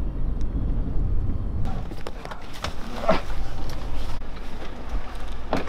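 A bus engine running with a steady low rumble that fades about four seconds in, over scattered knocks and clicks, and a sharp knock just before the end.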